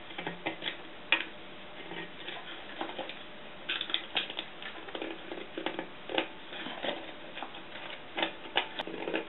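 A small metal hand tool scraping and clicking against the thin tin rim of a can as the bent-up tin edge is pressed over, in irregular short scrapes and ticks.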